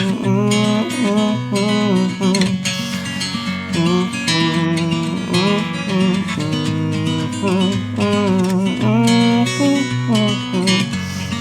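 Instrumental break in a folk song: strummed acoustic guitar chords with a melody line gliding in pitch above them.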